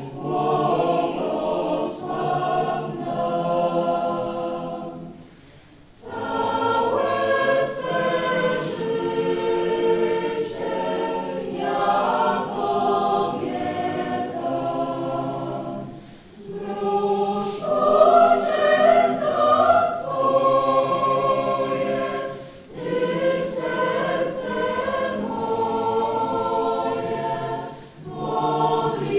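Mixed choir, mostly young women's voices, singing in sustained phrases with short breaks between them, loudest about two-thirds of the way through.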